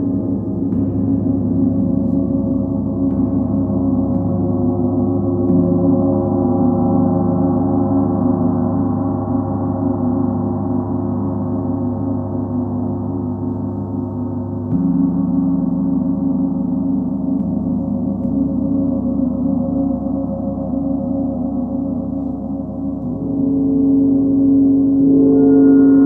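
Large planetary gongs (Sun, Full Moon and Earth gongs) ringing in a continuous wash of many overlapping tones. A fresh stroke swells the sound about fifteen seconds in, and a new, higher tone joins near the end.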